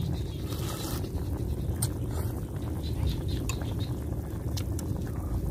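Slurping broth from a bowl and eating noodles with chopsticks, with a few faint clicks, over a steady low wind rumble on the microphone.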